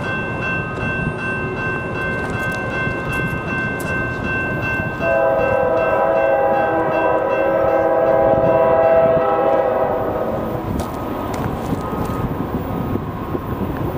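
Diesel locomotive's multi-chime air horn sounding from an approaching train, a steady chord that swells much louder about five seconds in and eases off around ten seconds.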